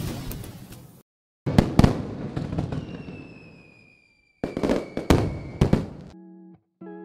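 Fireworks-style intro sound effect: a swelling rush that cuts off suddenly, then two clusters of sharp bangs, each followed by fading crackle, with a falling whistle after the first. Plucked guitar notes begin near the end.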